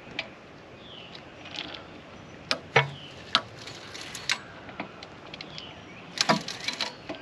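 Sharp metallic clicks and clanks of a socket wrench on the 17 mm crankshaft pulley bolt, as a long-stored VW Caddy engine is turned over by hand to see if it is free. Scattered single clicks, with a quick run of them near the end.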